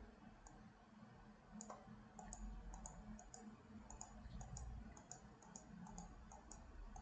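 Faint, rapid clicking of a computer mouse, starting about a second and a half in and going on at about four to five clicks a second, over a low room hum.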